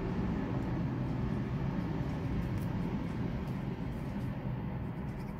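Steady low background rumble, with a few faint light clicks from a paper die-cut and a glue pen being handled.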